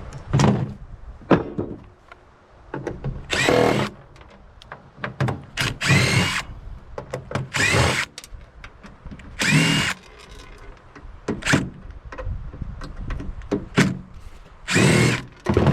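Power drill run in short bursts, each under a second with its motor pitch sweeping, about eight times, with sharp knocks and clicks of metal parts between the bursts.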